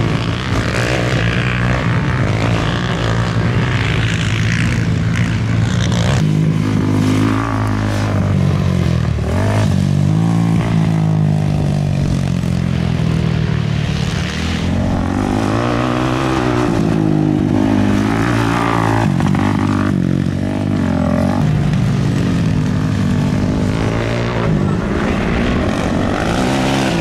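Racing ATV engines running hard, their pitch rising and falling over and over as the riders accelerate and back off.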